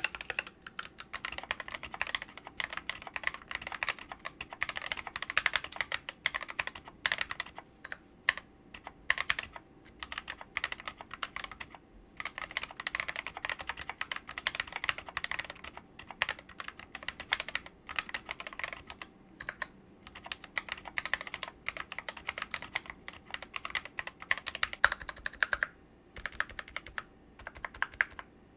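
Typing on a mechanical keyboard with Kailh Cream switches and SA-profile Mito Pulse keycaps: a fast, steady run of key clicks with a few short pauses.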